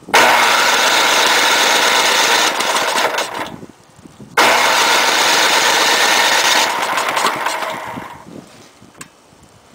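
Electric starter cranking the 10 hp Tecumseh Snow King OHV engine of a 2003 Toro Powershift 1028 snowblower in two steady bursts of about three and a half seconds each, each fading as the starter is let go. The engine does not catch because its tank has run out of gas.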